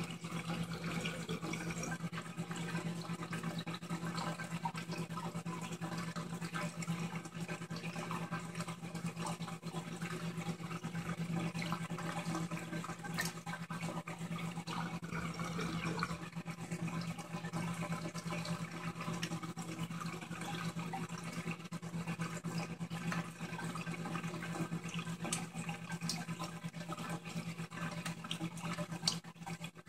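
Aquarium water circulation: a steady bubbling, gurgling water noise with a constant low hum from the tank's pump running underneath.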